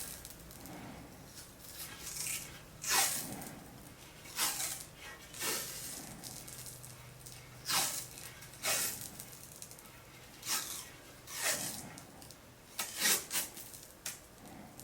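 Thin white cloth hockey tape peeling off the roll as it is wound around the top of a hockey stick, in about ten short, raspy pulls.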